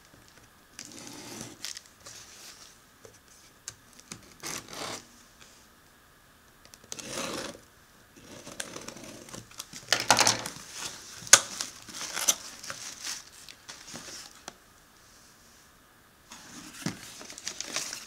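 Clear packing tape being slit and torn off a cardboard box, in irregular bursts of scratching and tearing with a few sharp clicks, loudest about ten to twelve seconds in, then the cardboard flaps being pulled open.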